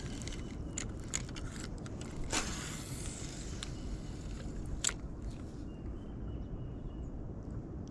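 Wind rumbling on the microphone in strong gusts, with scattered light clicks and scrapes of gear being handled in a kayak and a whooshing swish about two and a half seconds in.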